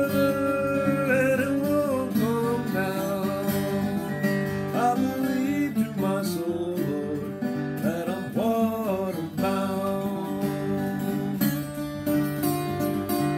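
A man singing over his own acoustic guitar, picked and strummed. About ten seconds in the voice stops and the guitar plays on alone.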